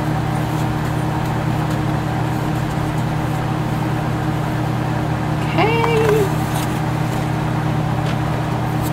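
A steady low machine hum with a constant faint whine above it, unchanging throughout, like a fan or room appliance running.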